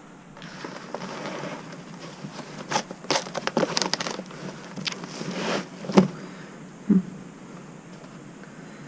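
Crunching and crinkling of loose debris being disturbed, with scattered knocks. The loudest knock comes about six seconds in and a second sharp one a second later.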